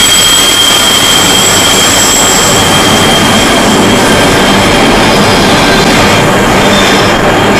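Container flat wagons of an intermodal freight train rolling past close by, a steady loud rush of wheels on rail, with a thin high-pitched wheel squeal that fades out about two to three seconds in.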